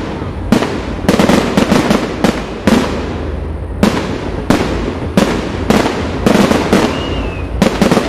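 Fireworks display: a rapid, irregular series of sharp aerial shell bursts, roughly two a second, each bang trailing off in an echo.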